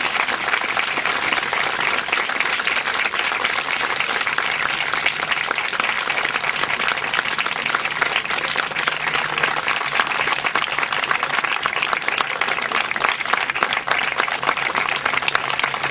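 A crowd of people clapping steadily, a minute of applause held as a tribute after a minute of silence.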